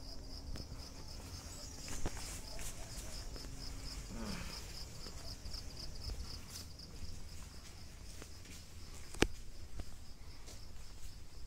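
Insects chirping in a steady rapid pulse, about five chirps a second, fading out about seven seconds in. A single sharp click near the end is the loudest sound.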